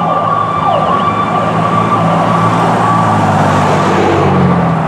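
Fire apparatus sirens sounding on an emergency response: a steady high tone with repeated falling sweeps, over a low steady drone.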